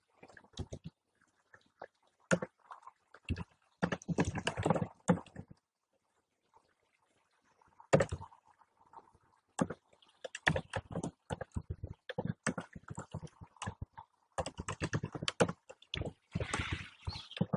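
Typing on a computer keyboard: clusters of quick keystroke clicks with short pauses between them.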